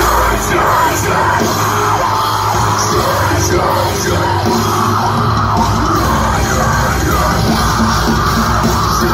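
Live heavy rock band playing loudly with drums and yelled vocals, heard from inside the crowd.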